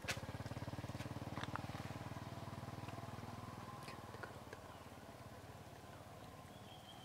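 A vehicle engine running with a low, rapid putter, loudest in the first few seconds and then slowly fading, with a sharp click at the start and another about a second and a half in.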